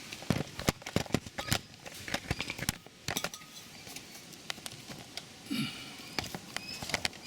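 Small metal parts clicking and clinking as a locking nut is fitted by hand onto the bolt of a ride-on mower's deck height chain: quick irregular clicks in the first three seconds, then fewer and further apart.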